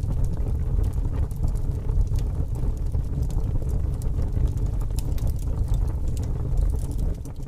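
Fire burning: a steady low rumble with scattered crackles and pops.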